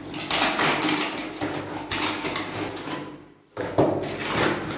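Cardboard box and plastic packaging rustling as a hand sprayer with its coiled hose is unpacked, in two stretches with a short break about three and a half seconds in.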